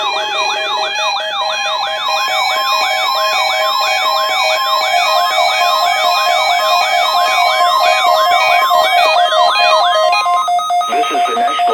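Several weather alert radio receivers sounding their alarms together during a NOAA Weather Radio warning-alarm test, set off by the broadcast alarm tone: overlapping warbling, siren-like sweeps a few times a second over steady beeping tones. The alarms stop about ten seconds in.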